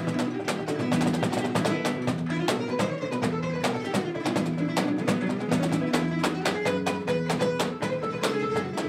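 Croatian tambura, a long-necked plucked lute, played in a quick run of picked notes, with a raw, bright sound.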